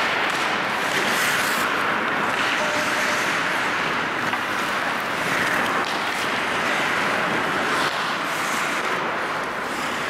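Steady hiss of an ice rink during play, with skate blades scraping the ice now and then.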